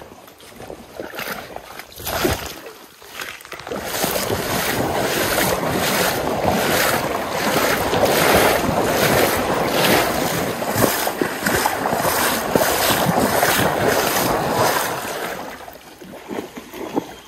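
Water splashing and sloshing as someone wades quickly through a shallow stream, strides about twice a second. It grows loud about four seconds in and dies away near the end.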